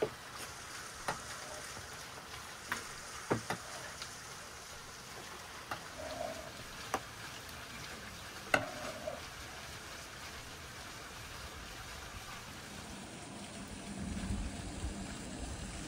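Kitchen knife slicing tomatoes on a wooden cutting board: scattered sharp knocks of the blade hitting the board over a steady hiss. A low rumble comes in near the end.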